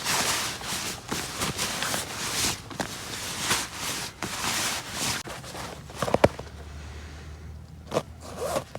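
Camping gear being packed: repeated zipping and rustling swishes of fabric, with a sharp click about six seconds in and a few lighter knocks near the end.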